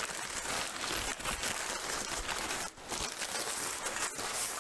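Crumpled brown kraft packing paper rustling and crinkling as a sheathed katana is pulled out of its wrapping.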